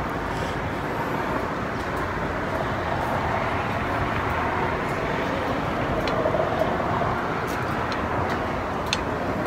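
Steady outdoor road-traffic noise, with a few faint clicks in the second half.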